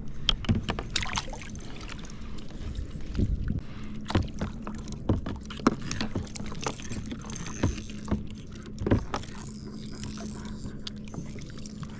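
Irregular knocks, bumps and rattles of handling in a kayak while a freshly landed Murray cod is unhooked, over a faint steady hum.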